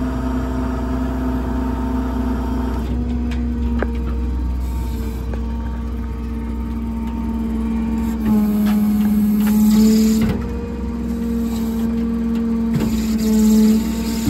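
Stellar 6620 hydraulic service crane being operated: a steady hydraulic whine that shifts in pitch and swells as crane functions start and stop, loudest from about eight to ten seconds in and again near the end, over the low, steady running of the truck's diesel engine.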